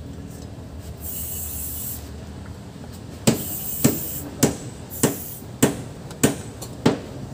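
Hammer blows: sharp knocks at an even pace, about three every two seconds, starting about three seconds in. Before them, about a second in, a brief hiss.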